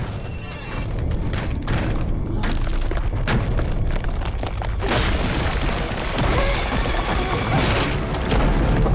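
Cartoon action sound effects: heavy booms and crashing impacts, many sharp hits at first, giving way to a dense rumbling crash about five seconds in as a chunk of stone breaks loose and falls. Dramatic background music plays underneath.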